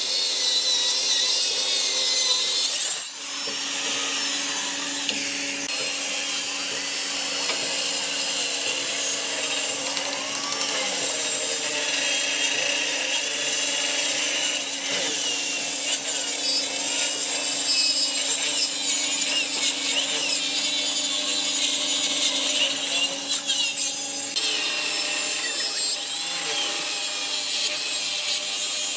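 Handheld circular saw running and cutting through a thick hardwood slab: a steady motor hum under the hiss of the blade chewing through the wood.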